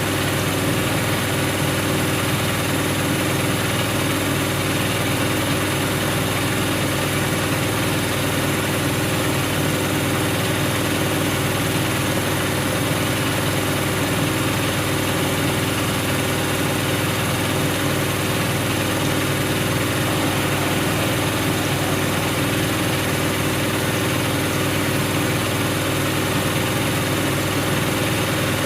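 Siemens Siwamat iQ washing machine running with a steady, unchanging motor hum and vibration.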